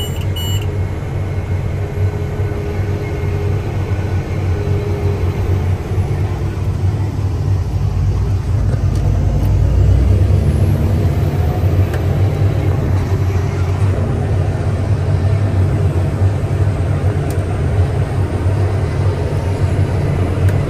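Vector self-propelled sprayer's engine running steadily under load while driving across a field in third gear, heard as a low drone inside the cab. A deeper rumble swells briefly about eight seconds in.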